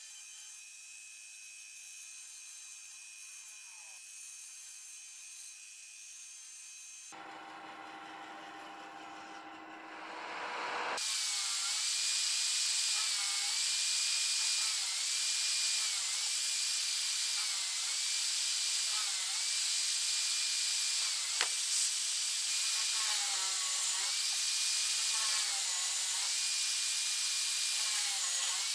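A band saw runs steadily and quietly at first. Then, from about eleven seconds in and much louder, an electric hand drill with a long bit bores holes through a wooden mandolin headstock, its whine dipping again and again as the bit bites into the wood.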